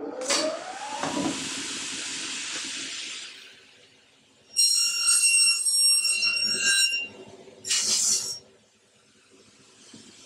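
ATECH 22-inch aluminum upcut saw cutting an aluminum extrusion at 30 degrees. It opens with a pneumatic hiss and a rising whine as the blade spins up. About four and a half seconds in comes a loud, high ringing screech for two and a half seconds as the carbide blade goes through the aluminum, then a short burst of air hiss about a second later.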